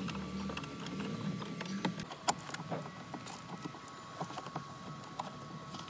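Irregular light clicks and knocks of a hand tool working on fasteners and plastic trim under a car's dashboard, with a faint low hum in the first two seconds.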